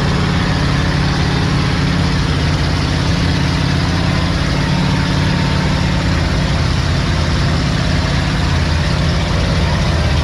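Off-road vehicle engine running at a steady, even speed, a low hum with no revving or changes in pitch.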